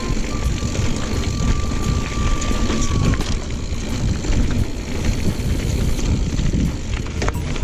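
Wind buffeting the GoPro's microphone over the rumble of a GT Aggressor Pro mountain bike's tyres on a dirt trail at speed. A thin steady whine sounds for the first three seconds or so.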